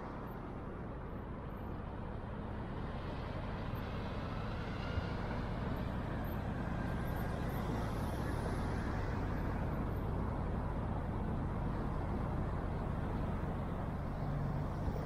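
City street traffic: motor vehicles running and passing, a steady engine rumble under road noise that grows gradually louder.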